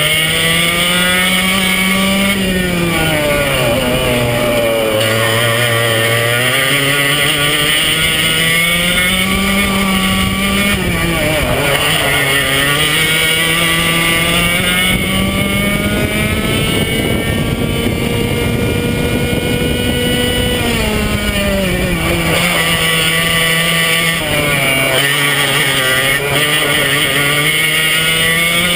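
Racing kart's Swedetech HPV2 engine, heard onboard at race pace, its pitch climbing on the straights and dropping as the kart slows for the corners, several times over.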